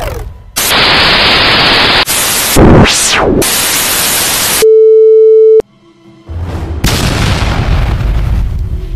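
Dubbed sound effects: bursts of loud static-like hiss with a falling-then-rising whoosh, then a steady beep lasting about a second, cutting off suddenly. About a second after the beep, a low rumbling music bed starts.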